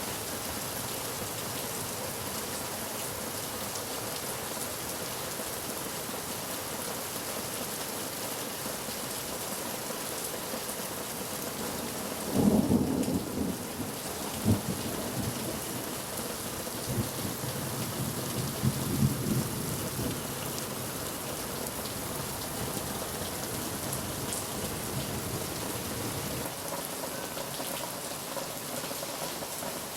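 Thunderstorm: steady rain falling throughout, with thunder about twelve seconds in, a loud clap, then a sharp crack and several seconds of low rumbling that dies away.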